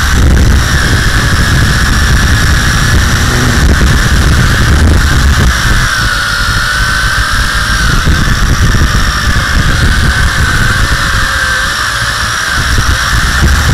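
WLToys V262 quadcopter's electric motors and propellers whining, heard from a camera mounted on the drone itself. The pitch wavers up and down as the motors speed up and slow while it manoeuvres. A heavy wind and vibration rumble runs underneath.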